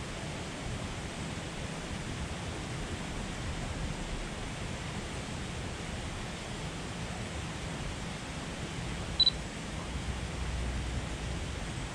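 Steady outdoor background hiss, with one short high electronic beep about nine seconds in.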